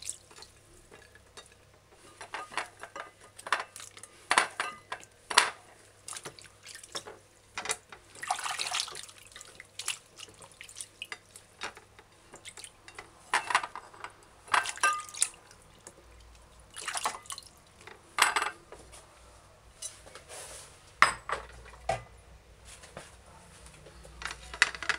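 Vegetables being rinsed by hand in a glass bowl of water: irregular splashes and drips, with sharp clinks of the vegetables against the glass bowl and a china plate.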